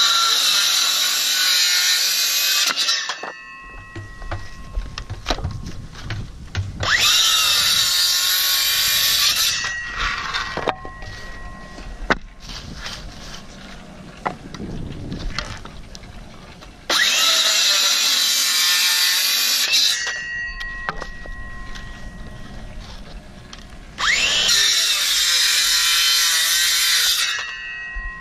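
Electric saw cutting wooden boards four times, each cut about three seconds long, the motor whining up to speed at the start of each. Knocks and board handling come between the cuts.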